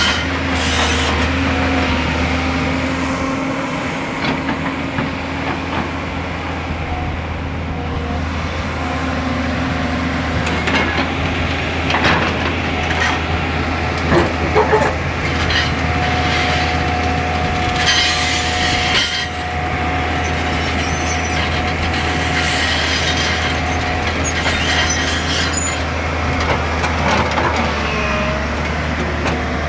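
Excavator's diesel engine running steadily, with clanks and scraping of stone and metal as it works, and a steady whine for several seconds past the middle.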